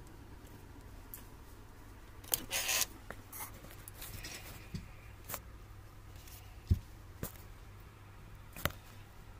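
Utility knives and a pair of scissors being handled and set down on a cloth-covered table: scattered light clicks and taps, a short scraping rustle about two and a half seconds in, and one louder dull knock a little after halfway.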